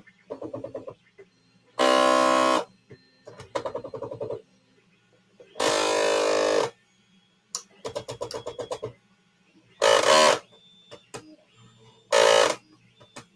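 Small 3D printer printing: its stepper motors sing in pitched tones about a second long, four times, during fast moves. Between them come rapid stuttering buzzes from short back-and-forth moves, over a steady low fan hum.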